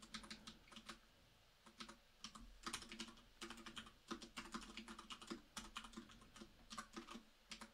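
Faint computer keyboard typing: runs of quick keystrokes, with a pause of about a second just after the start.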